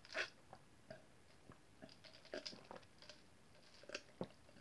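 Faint, scattered clicks and small handling noises close to the microphone. A slightly louder click comes about a quarter of a second in, another about four seconds in, and small ticks fall in between.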